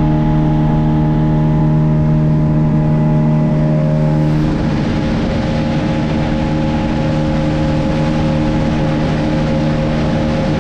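Speedboat engine running steadily. About four and a half seconds in, its note changes and a broad rushing noise grows beneath it.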